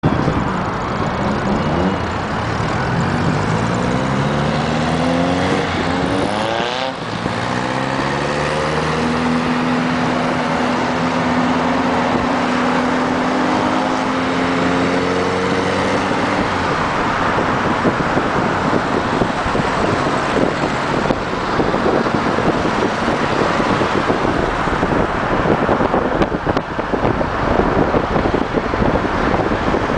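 Vintage Volkswagen bus's air-cooled flat-four engine pulling up through the gears: its pitch rises, drops at a gear change about seven seconds in, then climbs again. From about halfway on, the engine fades under steady wind and road noise at highway speed.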